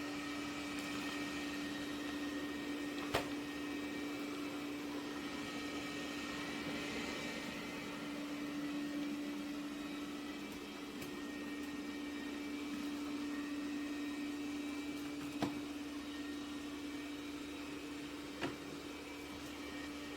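Roborock Qrevo Curv S5X robot vacuum running with a steady motor hum and whir, with three short clicks: one about three seconds in and two near the end.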